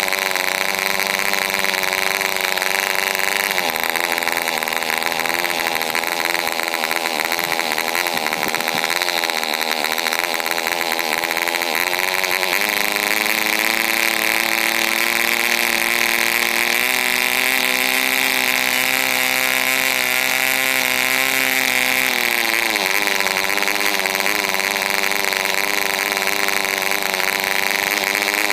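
PAW 1.5cc two-stroke model aero diesel engine running without its muffler. It runs continuously, its pitch shifting several times as the compression screw on top of the cylinder is adjusted.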